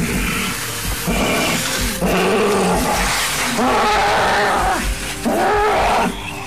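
A person in a possession trance growling and roaring like a wild animal, several long drawn-out roars one after another with short breaths between.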